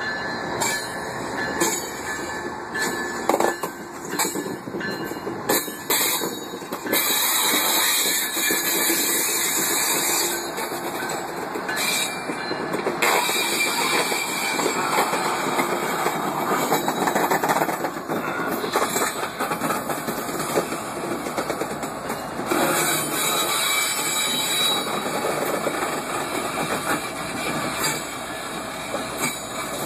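GE ES44AC diesel-electric locomotive rolling past at close range, its diesel engine running, with sharp clicks and clanks from the wheels on the track in the first several seconds, then a steadier, louder roar.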